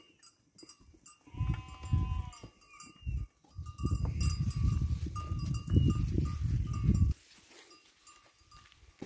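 A flock of sheep on the move, one sheep bleating once about a second and a half in. A low rumbling noise comes and goes, loudest between about four and seven seconds in, then drops away.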